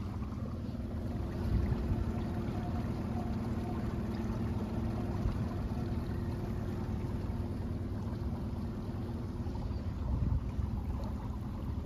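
A small skiff's outboard motor running steadily under way, a constant low drone with wind buffeting the microphone.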